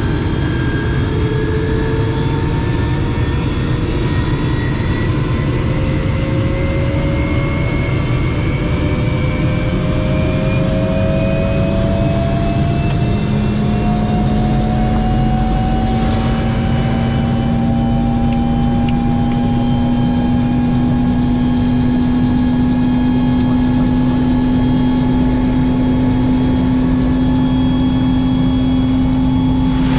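Helicopter turbine engine spooling up: a whine that rises slowly in pitch and levels off in the second half, over a steady low rumble.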